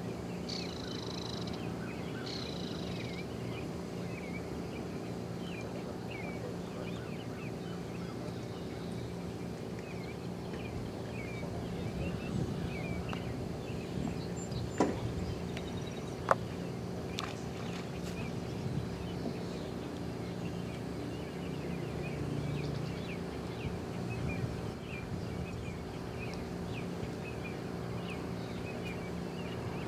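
Outdoor ambience: many small bird chirps over a steady low hum, with two short high calls near the start. Two sharp clicks about halfway through are the loudest sounds.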